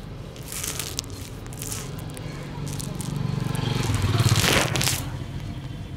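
Hands rubbing and scratching through hair in a head massage, a scratchy rustling in short bursts, with a louder rushing swell and low rumble about four seconds in.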